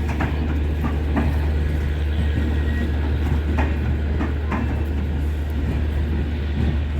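Passenger express train rolling along the track, with a steady low rumble and irregular sharp clicks from the wheels passing over rail joints.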